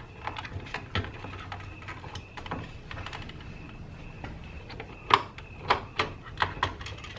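Plastic clicks and knocks as wire-nutted mains wires are pushed into a Hunter Pro-HC controller's power compartment and its perforated plastic cover is fitted back on, with a run of sharper snaps over the last two seconds.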